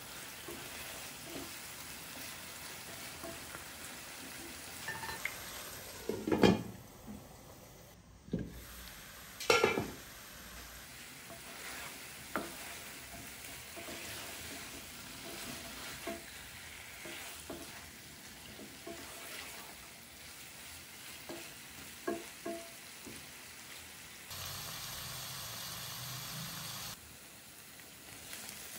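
Chicken pieces in a green marinade sizzling and frying in oil in a pan, stirred with a wooden spatula. The spatula knocks and scrapes against the pan, loudest twice near the middle.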